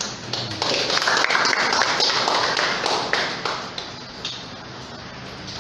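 Small audience clapping: a dense patter of hand claps that starts about half a second in, holds for about three seconds, then thins out and dies away.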